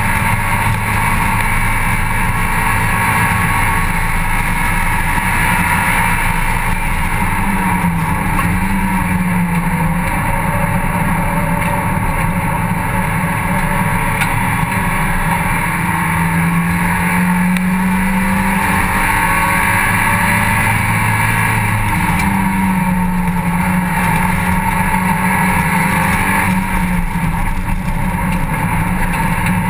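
Mazda MX-5 Cup race car's four-cylinder engine running hard on track, heard from inside the open cockpit with wind rushing past. The engine note holds high, then drops and climbs back up several times.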